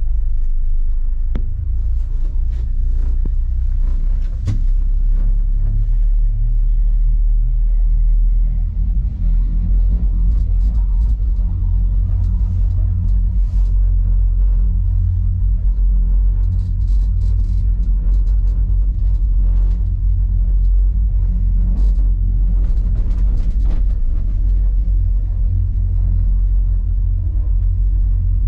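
Steady low rumble of wind buffeting the microphone inside a small cable-car gondola as it travels downhill, with scattered faint clicks and rattles.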